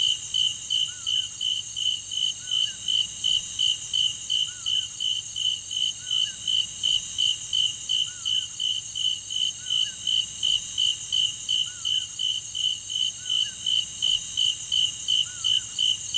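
Cicadas calling in a steady, even pulse of about two and a half chirps a second over a continuous high-pitched drone, with a faint short call repeating every couple of seconds underneath.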